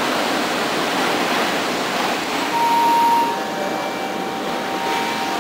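Steady rushing noise heard from inside a passenger train carriage. A faint, steady high whine joins it about halfway through.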